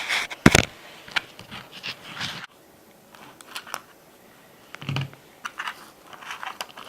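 Hands working a component loose from an FPV plane's electronics bay: a quick run of clicks, scratches and scrapes with one sharp click about half a second in, then scattered small clicks.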